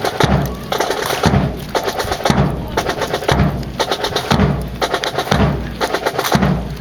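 Marching drum corps playing a cadence: snare drum strokes over a bass drum beat that falls about once a second.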